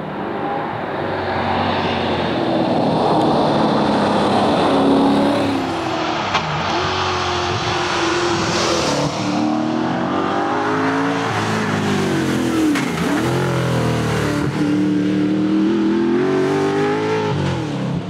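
Triumph TR7 rally car's V8 engine revving hard under acceleration, its pitch climbing and then dropping sharply at each gear change, several times over.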